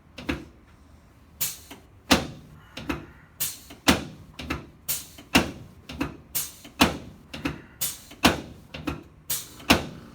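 A long run of sharp clicking knocks, roughly two a second at slightly uneven spacing, from chiropractic adjusting work on a treatment table.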